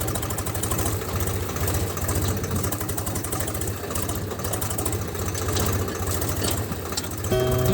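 Mini tractor's small engine running steadily, with fast, even pulses. Music comes in near the end.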